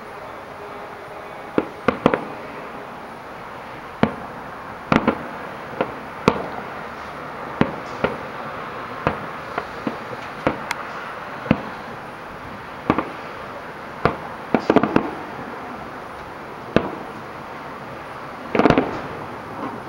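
Aerial firework shells bursting: about twenty sharp bangs at irregular intervals, roughly a second apart, with a quick run of several together near the end, over steady background noise.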